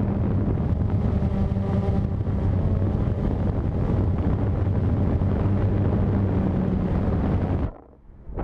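Blade 350 QX3 quadcopter's electric motors and propellers humming steadily, heard from its onboard GoPro with wind on the microphone. Near the end the motor sound cuts out suddenly and goes almost silent, as the quadcopter falls out of the sky.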